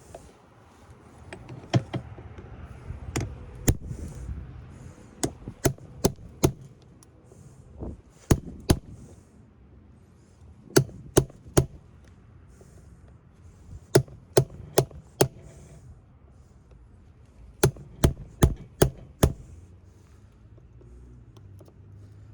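Hammer blows on a chisel cutting a forklift battery cell's connector off close to its post. The sharp metallic strikes come in quick groups of three to five, with short pauses between the groups.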